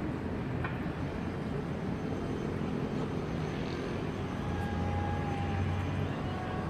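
Steady low rumble of distant city traffic, swelling slightly in the second half, with a faint thin tone heard twice near the end.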